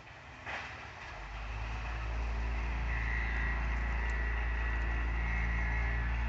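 Motor vehicle engines running: a low, steady rumble that swells over the first two seconds and then holds, with a thin high hiss through the middle.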